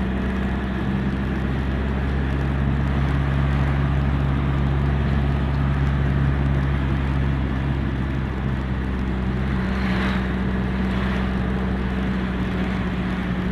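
Car engine and road noise heard from inside the cabin while driving at a steady speed: a steady low hum. A brief rush of noise comes about ten seconds in.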